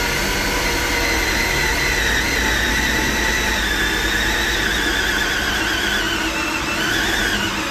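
A motor running steadily with a high whine over a rushing noise; the whine sinks slowly in pitch and wavers near the end.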